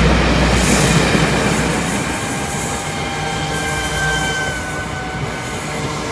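Diesel-hauled freight train passing, its deep rumble loud at first and fading as it draws away. A thin, high wheel squeal rises out of it from about two seconds in and dies away about three seconds later.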